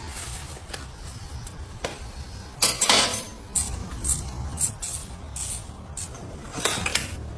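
Metal objects clinking and clattering in a string of irregular sharp knocks, the loudest cluster about three seconds in, over a steady low rumble.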